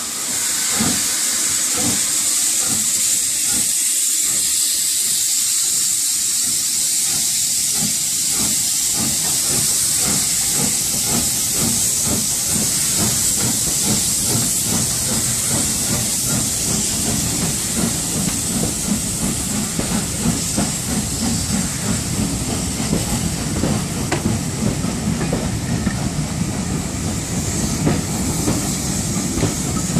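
Southern Railway Schools class 4-4-0 steam locomotive pulling away, with a loud steady hiss of steam from around its cylinders. The coaches then roll past, their wheels clicking over the rail joints more and more densely.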